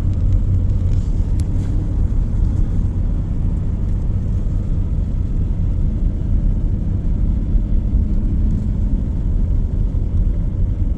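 Steady low rumble of a car driving slowly on a snow-covered road, heard from inside the cabin.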